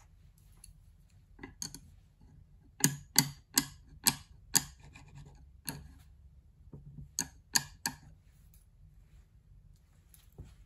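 Bamboo chopsticks being set down on and knocked against a ceramic chopstick rest on a small wooden base: about a dozen sharp clicks, the loudest clustered in the middle, as the rest is tested for tipping.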